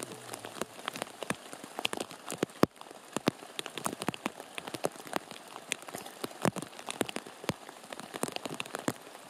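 Rain falling on a river: a soft hiss with many sharp, irregular drop ticks.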